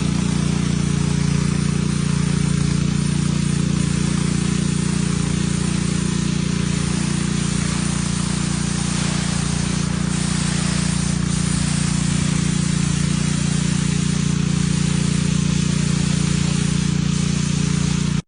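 Pressure washer running steadily: a constant engine-like hum under the hiss of a high-pressure water jet spraying a driveway.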